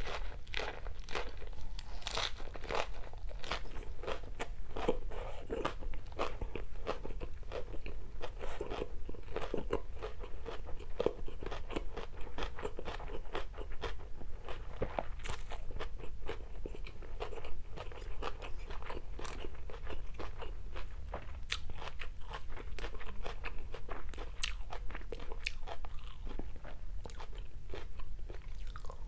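A person chewing and crunching mouthfuls of lettuce-wrapped stir-fried rice vermicelli with fried tofu, a steady run of crisp crunches and smacking bites.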